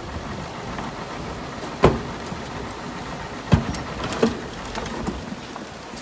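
Heavy earthmoving machinery running with a steady low rumble under a crackling, hissing noise, broken by three sharp knocks about two, three and a half and four seconds in.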